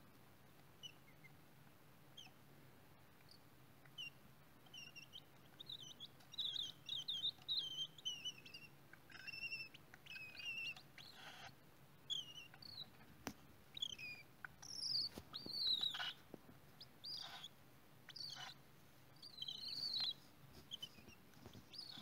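Cockatiel chicks in a nest box giving many short, high squeaky chirps. The chirps are sparse at first and come thick and fast from a few seconds in, mixed with a few soft clicks.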